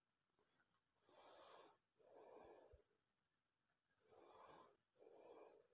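Faint breathing close to the microphone: four breaths in two in-and-out pairs, with near silence between them.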